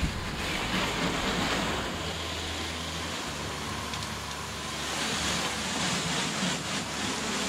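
Water jet from a spray nozzle hissing steadily against an aluminum boat hull and the driveway, rinsing off a hull cleaner.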